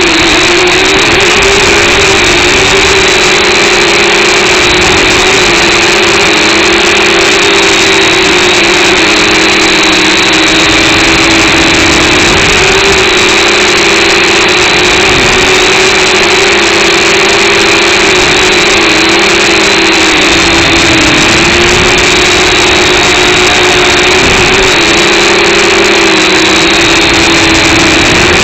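Quadcopter drone's motors and propellers whining steadily in flight, the pitch dipping briefly a few times as the motors change speed.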